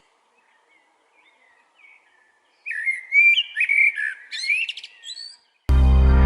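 A bird chirping, a quick run of short whistled notes that rise and fall, for about three seconds after a near-silent start. Loud electronic music starts just before the end.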